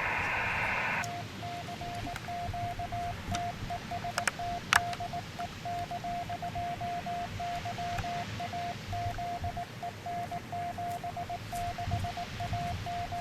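Ham radio receiver hiss that cuts off after about a second, followed by a Morse code (CW) signal: one steady beeping tone keyed on and off in dots and dashes, with a few faint clicks.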